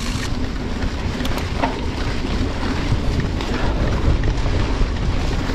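Mountain bike rolling along a leaf-covered forest trail: steady wind rumble on the action camera's microphone, with tyre noise over leaves and roots and a few light clicks and rattles from the bike.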